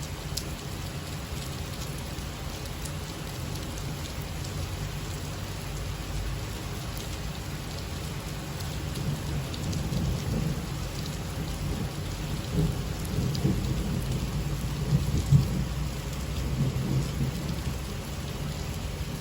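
Steady rain falling, with scattered drop ticks, and a low rumble that swells through the second half, loudest about fifteen seconds in.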